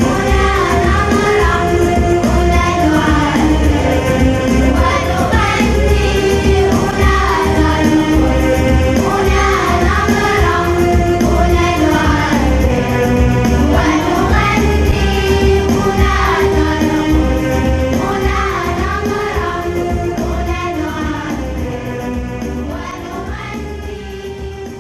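Music with singing over a steady beat, fading out over the last several seconds.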